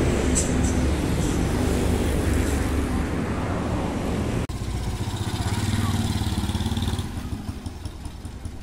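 Motorcycle engine running. About halfway through the sound cuts off abruptly and another motorcycle engine takes over, getting quieter near the end.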